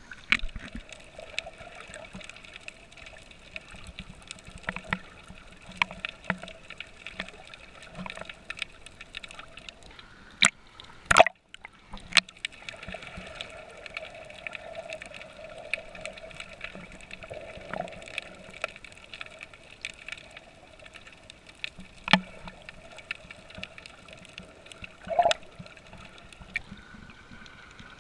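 Sea water sloshing and gurgling around a camera as it dips under and comes back up at the surface, with scattered knocks and splashes and a faint steady hum underneath. There is a louder splash about eleven seconds in.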